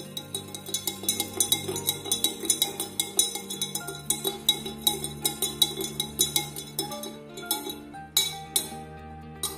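Metal spoon clinking against a drinking glass, several clinks a second, as sugar is stirred into water, over background music with sustained notes.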